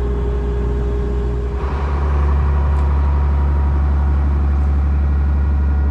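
Case IH 7120 tractor's diesel engine running steadily, then throttled up about one and a half seconds in and holding at the higher, louder speed.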